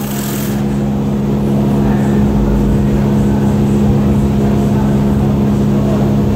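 Steady machine drone with a constant low hum, from running workshop machinery.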